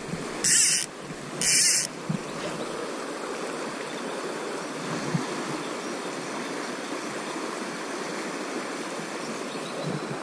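Fast-flowing river water rushing steadily around the wader. Two short, loud hissing zips come about half a second and a second and a half in.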